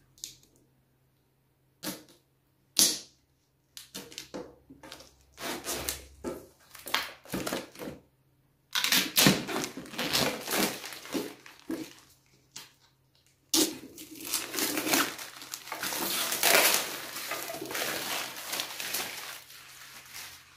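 Protective plastic film being picked at and peeled off a round wooden container: scattered scratches and taps at first, then two long stretches of crinkling and tearing plastic.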